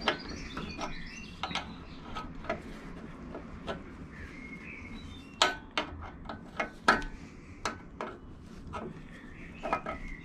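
Steel open-ended spanner clicking and clinking against the brass union nut of a motorcycle oil pipe as it is worked loose. A string of sharp metal clicks, most of them bunched around the middle.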